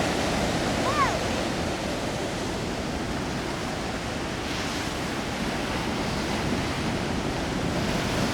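Steady rush of wind and water, with wind buffeting the microphone. A brief high squeak about a second in.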